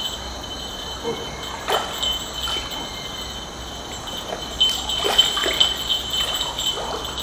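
A hooked fish splashing at the water surface as it is played on the line, several short splashes, over a steady high-pitched ringing tone in the background.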